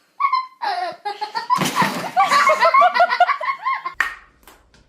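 People laughing in quick repeated bursts, set off by a sudden noisy clatter about a second and a half in.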